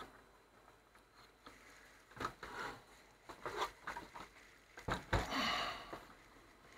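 Hands handling parts: a few scattered light clicks and knocks, short rustling, and a heavier thump about five seconds in.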